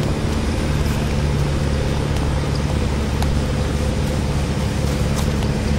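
A steady, loud motor hum with a fixed low pitch that does not rise or fall, with a few faint ticks over it.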